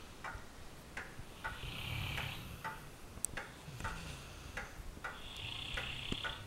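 A sleeping puppy's slow breathing: two long, soft, snore-like breaths, one about two seconds in and one near the end. Faint ticking runs underneath, roughly two ticks a second.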